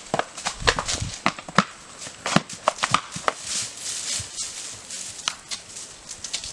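A spotted saddle filly's hooves striking a rock trail: an irregular run of sharp clops, several a second.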